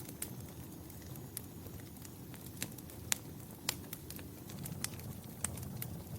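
Wood fire in a fireplace crackling: scattered sharp pops and snaps, about eight of them, over a steady low rush of burning. The loudest snap comes about three seconds in.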